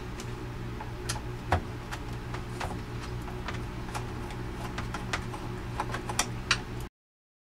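Small irregular clicks and taps of a screwdriver and loosened screws on a 400-watt power inverter's finned metal case as it is being taken apart, over a steady low electrical hum. The sound cuts off suddenly near the end.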